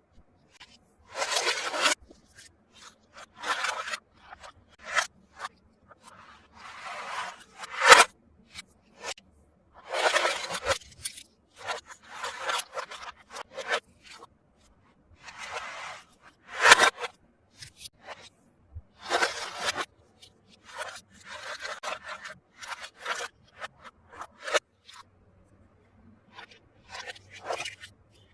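Toy packaging being unboxed by hand: a string of short rustling, scraping noises, each lasting about a second or less, with a few sharp clicks.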